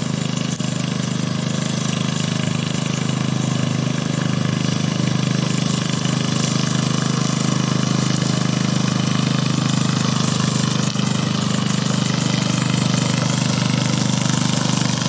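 HT550 remote-controlled lawn mower's engine running steadily at an even speed, with a fast, even firing pulse.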